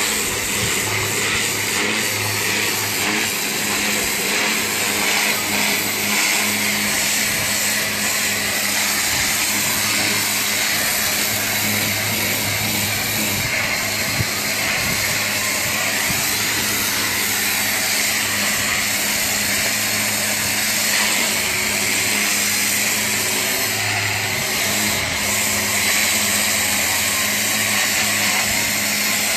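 Pressure washer running steadily, its high-pressure water jet hissing against a fibreglass boat hull as it strips off barnacles, over a steady machine hum.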